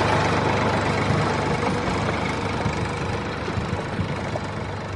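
An engine idling steadily, like a tractor, slowly fading in level.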